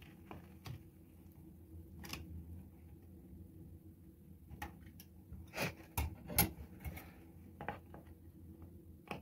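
Scattered clicks, taps and rustles of hands working a juniper's trunk into a plastic pot and fixing it with wire. The loudest is a cluster of sharp knocks a little past halfway.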